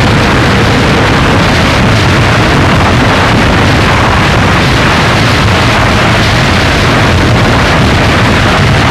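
Harsh noise music: a loud, dense, unbroken wall of distorted noise with a heavy low rumble, holding steady with no pauses or breaks.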